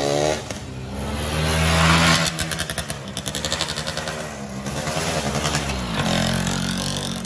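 Tuned 116cc underbone racing motorcycle with an open racing exhaust, revving hard: the pitch climbs to a peak about two seconds in, drops as the rider backs off for the corner, then rises again as it accelerates past close by.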